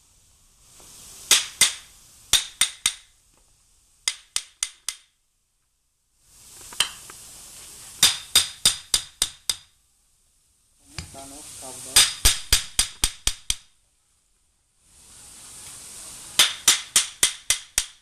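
Hammer blows on a metal mold for casting loudspeaker horns, in five quick runs of four to nine sharp metallic strikes. A steady hiss swells before several of the runs.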